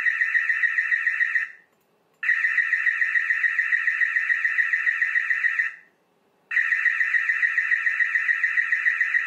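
Built-in siren of a Dahua TioC security camera sounding its active-deterrence alarm, set off by motion detection: a loud, rapidly warbling electronic tone in blasts a few seconds long, with two short breaks, about a second and a half in and again near six seconds.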